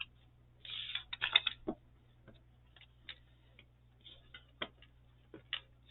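Craft supplies being handled on a table: a short rustle of packaging about a second in, then scattered light clicks and taps.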